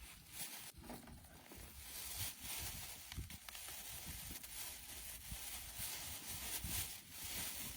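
Faint rustling with scattered small clicks and knocks: camping gear and power banks being handled and set down.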